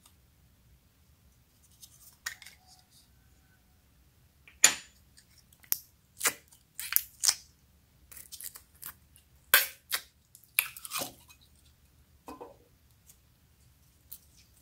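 A plastic slime container being handled and opened and its glossy slime squeezed out by hand: a scattered string of sharp clicks and wet pops, the loudest about four and a half and nine and a half seconds in.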